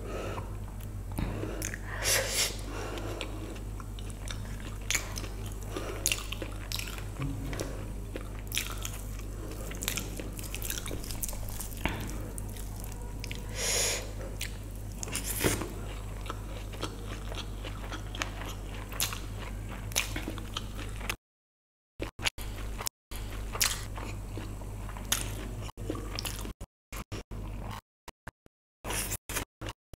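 Close-miked eating sounds: fingers squishing and scooping vegetable biryani, with wet mouth smacks and chewing, heard as scattered short clicks over a low steady hum. In the last third the sound cuts out to silence several times.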